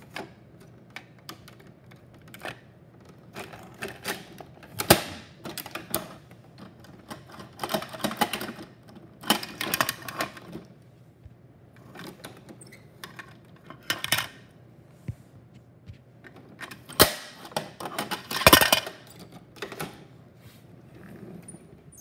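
Hard plastic clicking and clattering as a Bruder toy garbage truck's bin lift is worked by hand, gripping and tipping small plastic wheelie bins. The clicks come irregularly, with louder clattering rattles about five seconds in, around nine to ten seconds, and near eighteen seconds.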